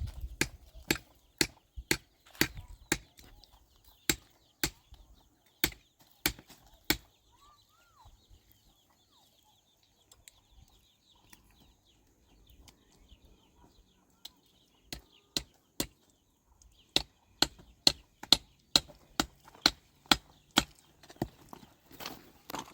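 A hand tool striking repeatedly, about two sharp blows a second, in two runs separated by a pause of several seconds. A single faint chirp comes in the pause.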